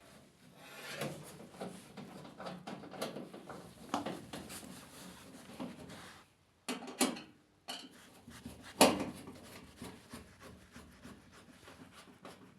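Parts being handled and worked on: irregular rubbing and scraping with several sharp knocks, the loudest about nine seconds in.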